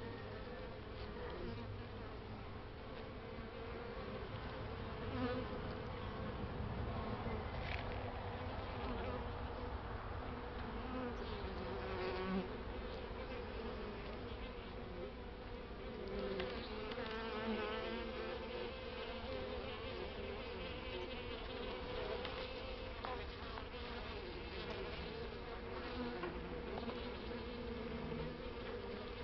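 Honeybee colony in an open hive, a steady, wavering buzzing hum from many bees.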